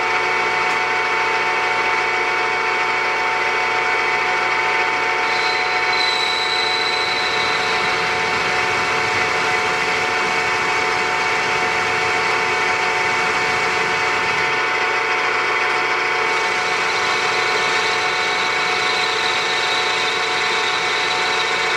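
Milling machine spindle running at about 786 RPM with an end mill cutting a recess into a cast iron plate, a steady machine hum and whir with a brief higher whine about five seconds in.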